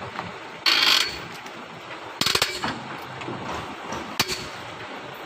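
Metal tools clanking and knocking on a truck wheel's nuts and bolts during a tyre change. There is a short noisy scrape just under a second in, a quick run of knocks a little after two seconds, and a single knock about four seconds in.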